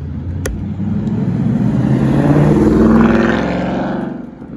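Ford Mustang accelerating hard away, its engine note climbing steadily in pitch and getting louder up to a peak about three seconds in, then fading quickly as the car pulls away.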